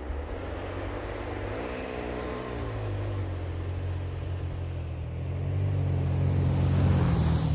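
Toyota Tacoma pickup pushing up a trail of deep, undriven snow under power, its engine note wavering and then growing louder as the truck comes close, with a hiss of tyres and spraying snow as it passes near the end.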